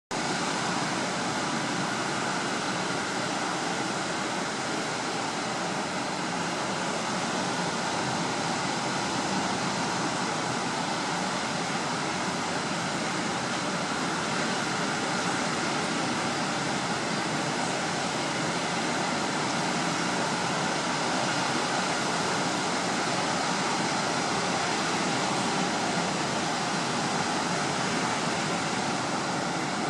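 Steady rushing noise of heavy surf from a large typhoon swell breaking, even and unbroken with no distinct crashes.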